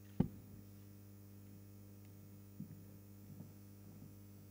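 Steady electrical mains hum, with one sharp thump shortly after the start and a softer knock about two and a half seconds in.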